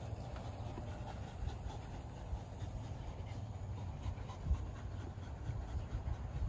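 Wolfdogs panting hard after a run, over a low, uneven rumble.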